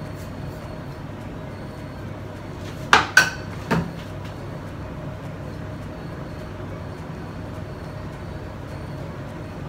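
Three quick sharp clacks within about a second, a spatula knocking against a container, over a steady low hum.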